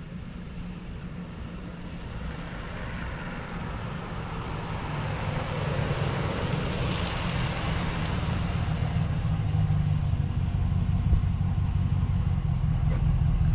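Ram 1500 Express pickup's 5.7-litre Hemi V8 running at low speed as the truck drives past, with tyre noise swelling as it passes closest about halfway through. The engine grows louder near the end as the truck pulls away with its exhaust toward the listener.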